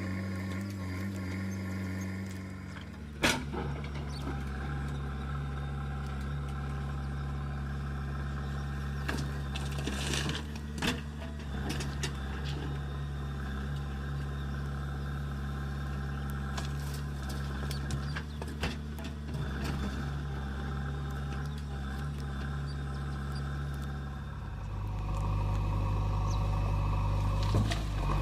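Backhoe loader's diesel engine running steadily under working load. Its note shifts about three seconds in and gets louder near the end, with a few sharp metallic clanks from the machine's arm and bucket along the way.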